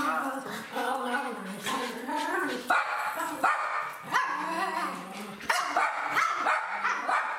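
Small dogs, Pomeranians, barking and yapping repeatedly while playing, with several sharp barks.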